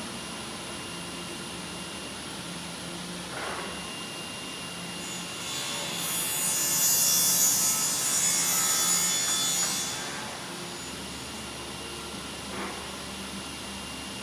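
Four-head welding machine running with a steady hum; about five seconds in, a loud hiss swells up, holds for about four seconds and dies away, with a soft knock before it and another near the end.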